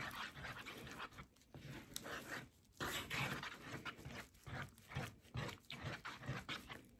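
A plastic spoon stirring thick Versagel lip gloss base in a bowl: soft, sticky squishing and scraping strokes, a few a second, fairly quiet.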